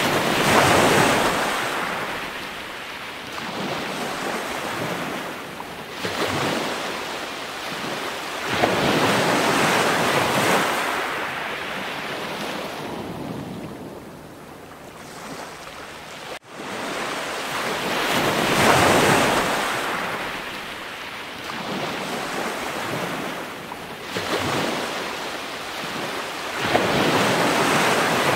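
Ocean surf: waves washing in and drawing back in slow, repeating swells, with a sudden cut about halfway through where the recording jumps.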